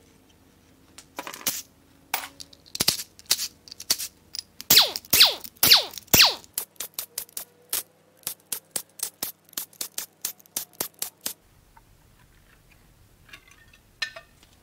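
Cordless drill run in short trigger bursts, spinning out the timing cover bolts, followed by a quick run of sharp metallic clicks, about four a second, for several seconds. A light metal knock comes near the end as the timing cover comes free.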